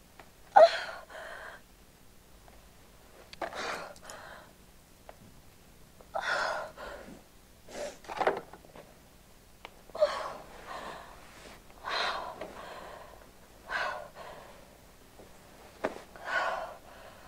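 A woman's distressed breathing: about eight gasping breaths, roughly one every two seconds, the sharpest about half a second in.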